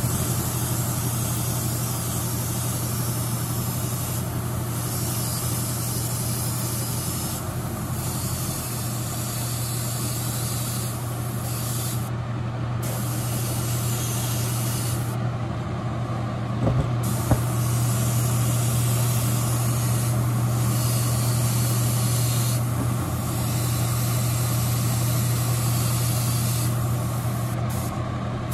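Airbrush hissing as it sprays white base-coat paint, in long passes broken by several brief pauses, over the steady hum of the spray booth's exhaust fan. A single sharp click about two-thirds of the way in.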